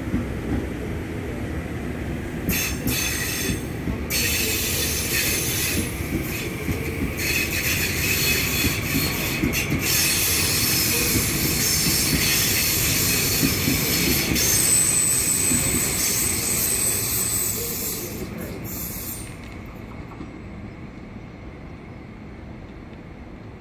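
A train running past on the station tracks, with the noise of wheels on rail, and a thin high-pitched wheel squeal held for a couple of seconds past the middle. At about 19 seconds the high rail noise cuts away, leaving a quieter low rumble.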